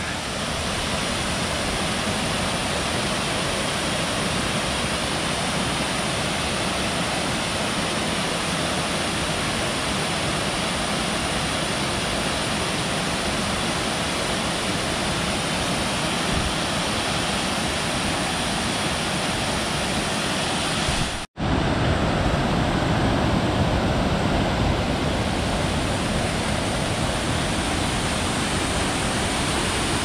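Steady rushing roar of a waterfall and whitewater pouring over mossy rocks and logs. About two-thirds of the way through it cuts out for an instant, then carries on as the similar rush of a cascading creek.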